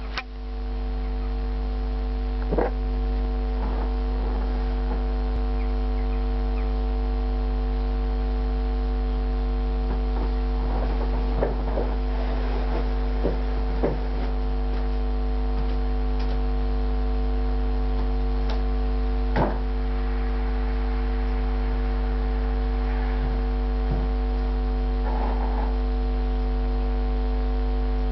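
Loud, steady electrical mains hum: a low buzz with a stack of unchanging overtones, broken only by a few faint clicks.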